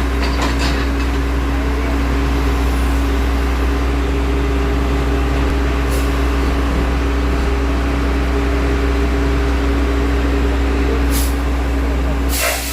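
Backhoe's diesel engine running steadily at a constant note, with a few brief clicks and a short noisy burst near the end.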